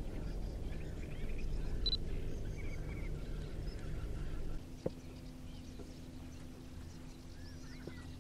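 Faint small-bird chirps over a low wind rumble. About halfway through the rumble drops away abruptly, a single click is heard, and a faint steady low hum carries on under occasional chirps.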